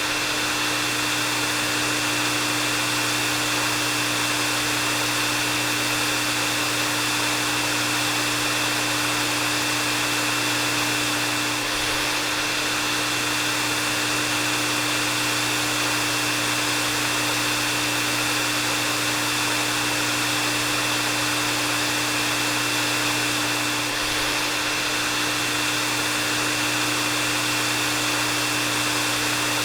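Hair dryer running steadily: an even rush of air with a steady high whine and a low hum, with a faint dip about every twelve seconds.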